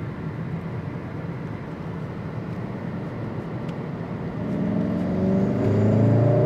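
VW Golf R's 2.0-litre turbocharged four-cylinder engine heard from inside the cabin, pulling in third gear under boost from low revs. A steady low drone gives way, about four seconds in, to an engine note that rises steadily in pitch and loudness as the revs climb past 3000.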